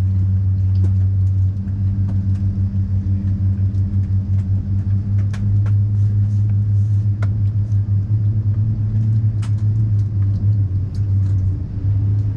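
Steady low hum and rumble of an Airbus A380's cabin, with a few faint clicks.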